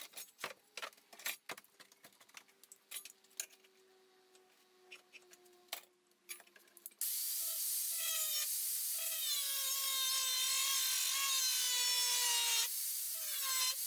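Scattered clicks and knocks of metal being handled, then, about halfway in, an angle grinder starts grinding steel, its whine sagging in pitch under load. It stops briefly near the end and starts again. Its disc is badly worn down, too small to keep running.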